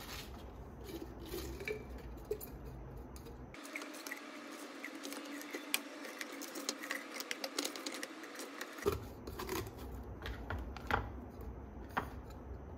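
Leafy greens and cucumber pieces being pushed by hand into a plastic blender cup: a crackly rustle of leaves with many light clicks and taps of fingers and produce against the plastic.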